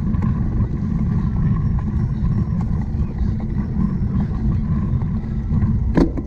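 Steady low rumble of a cyclocross bike being ridden over rough ground, with wind on the microphone, and a sharp knock about six seconds in.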